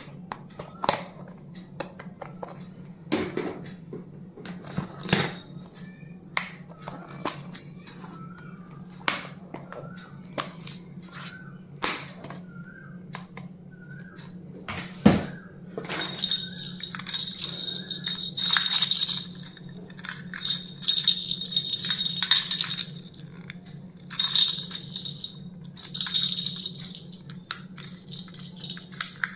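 Stationery being handled during unboxing: a string of sharp clicks and taps, the loudest a knock about halfway. After that come bursts of scratchy rustling, over a steady low hum.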